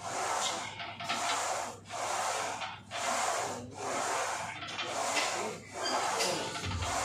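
Hard, rhythmic breathing during a set of barbell squats, a noisy breath about every second, in and out, with brief pauses between. A bass beat of music comes in near the end.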